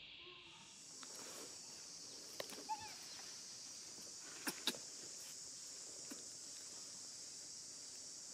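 Steady, high-pitched droning of insects that shifts higher about half a second in and then holds, with a few faint sharp clicks and taps a couple of seconds in and again near the middle.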